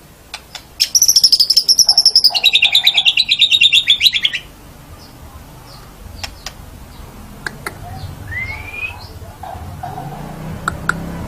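White-rumped shama (murai batu) singing: a loud, rapid trill of repeated notes starts about a second in, drops to a lower pitch partway through and stops after about three and a half seconds. Quieter sharp clicks and a short rising whistle follow.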